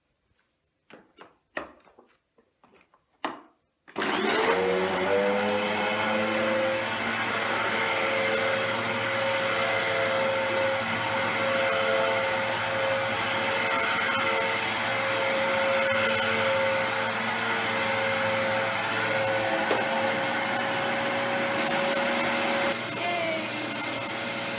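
A few clicks and knocks, then about four seconds in a vacuum cleaner with a freshly replaced brush-roll drive belt is switched on. Its motor spins up to speed and runs steadily, dropping slightly in level near the end.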